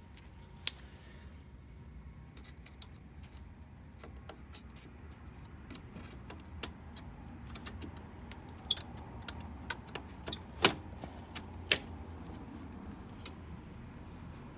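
Scattered clicks and knocks of hands handling parts inside an open desktop computer case, over a low steady hum. The two loudest clicks come about a second apart near the end.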